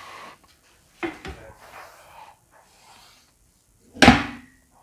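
Soft knocks and shuffling about a second in, then one loud, sharp thud about four seconds in as the chiropractor delivers the thrust of a side-lying lumbar adjustment, the patient's body jolting against the padded treatment table.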